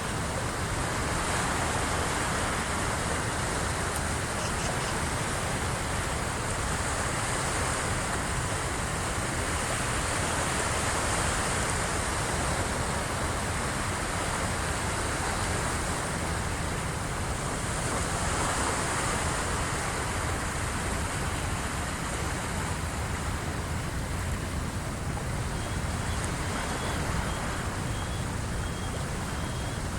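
Waves of the incoming high tide washing against the shore in a steady surf wash that swells and eases a few times.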